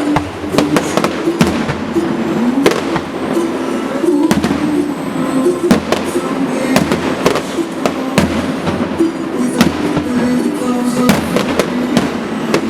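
Fireworks display: a rapid, irregular string of shells bursting with bangs and crackles, over music.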